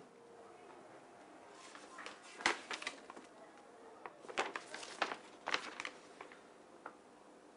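Paper rustling and crinkling as an envelope is opened and a letter pulled out and unfolded: a string of short, sharp rustles, the loudest about two and a half seconds in and a cluster between about four and five and a half seconds.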